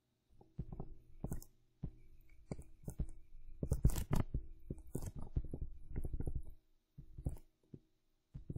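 Stylus tapping and scratching on a pen tablet while handwriting, an irregular run of short knocks and scrapes.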